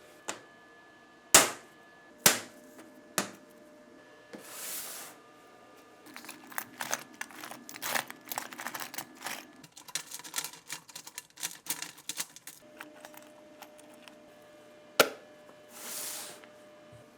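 Parts of an old Browning pistol being worked on by hand: several sharp separate clicks, then a dense run of small clicks and scraping lasting about six seconds, one more sharp click near the end, and two short hisses, one about five seconds in and one just before the end.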